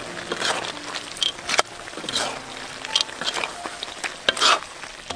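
Ladle stirring peanuts into a pot of saucy stir-fry, scraping and clinking against the pot in uneven strokes, with a few sharp knocks.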